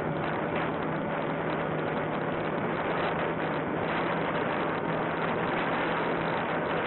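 Onboard sound of a Volantex Sport Cub 500 electric RC plane in flight: a steady rush of wind over the small camera's microphone, with a faint steady hum from the plane's electric motor.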